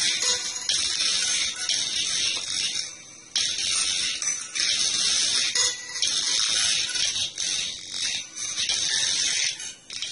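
Small speaker on a cheap infrared audio receiver (LM386 amplifier) playing phone music sent over an infrared link, coming through as a harsh, crackling hiss that cuts in and out as the boards are moved, with dropouts about three seconds in and near the end.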